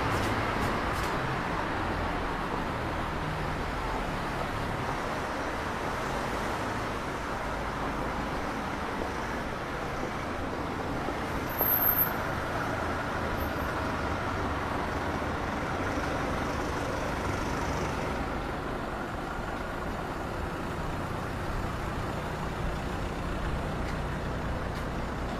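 City street traffic: a steady hum of cars driving past, with a brief, sharp high-pitched sound about halfway through.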